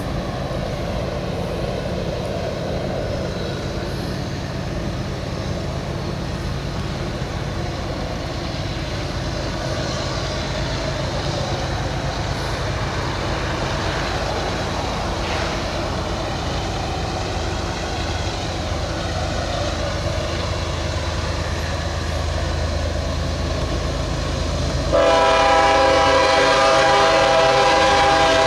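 Pair of GE diesel locomotives at the head of a loaded coal train, approaching with a low steady engine drone that grows slowly louder. Near the end the air horn suddenly blows, a loud held chord of several notes.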